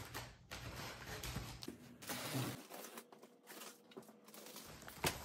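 Box cutter slicing through packing tape on a large cardboard box: faint scraping and scratching with a few light clicks.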